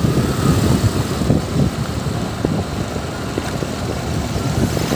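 Wind buffeting the microphone on a moving two-wheeler, a rough, fluctuating roar over the road and engine noise of the ride.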